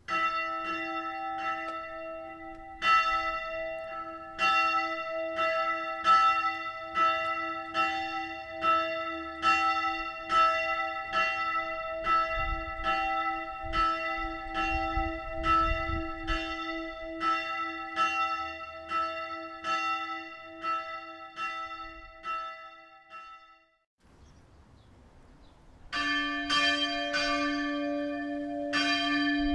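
Church bells of a three-bell peal (h', d'', e'') rung one at a time. A higher bell strikes in a steady rhythm, stops about three-quarters of the way through and hums away. After a short pause the lower middle bell, the Kreuzglocke (strike tone d'', 216 kg), starts ringing near the end.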